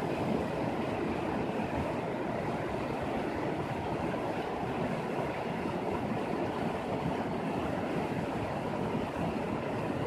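Shallow mountain river rushing over rocks and small rapids: a steady, even rush of water.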